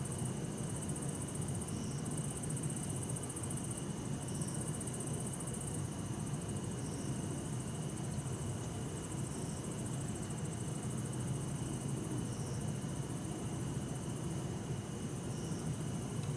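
Night insects, with bell crickets among them, trilling steadily in high, pulsing bursts, with short chirps every couple of seconds. Under them runs a steady low hum of distant road traffic.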